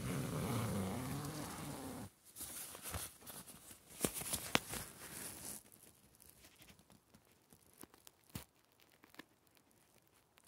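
Tent door zipper pulled open in one long stroke of about two seconds, its pitch rising and falling with the speed of the pull. Then tent fabric rustles, with a few sharp clicks, and the sound fades to faint noise about six seconds in.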